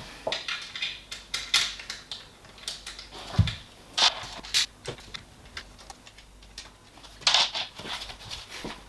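Irregular clicks and clinks of small metal parts being handled as M5 bolts are fitted by hand into the 3D printer's frame base, with sharper knocks about 3.5, 4, 4.5 and 7 seconds in.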